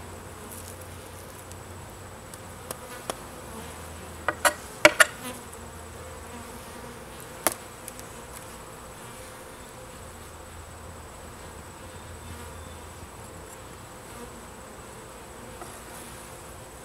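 Italian honey bees buzzing steadily around an open top-bar hive. A cluster of sharp knocks from a metal hive tool prying at the wooden top bars about four to five seconds in, and one more a few seconds later.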